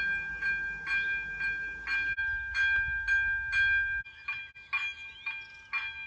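Level-crossing warning bells ringing at about two strikes a second, signalling that a train is approaching. The ring changes in tone and rhythm twice, about two and four seconds in.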